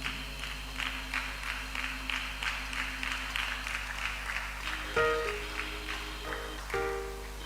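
Music with steady held chords and people clapping along in rhythm, about three claps a second, which die away after about four and a half seconds. A louder knock comes about five seconds in.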